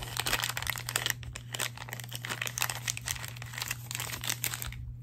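Plastic packaging crinkling and crackling as it is handled and pulled open: a dense, irregular run of crackles that stops just before the end.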